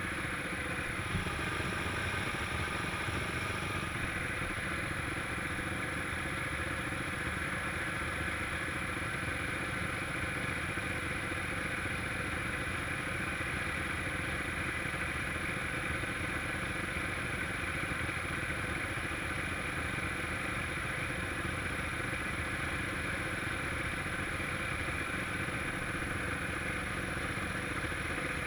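A vehicle engine idling steadily and evenly, with no revving.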